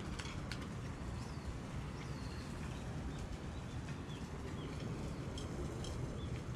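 Small birds chirping now and then over steady background noise, with two sharp clicks about half a second in.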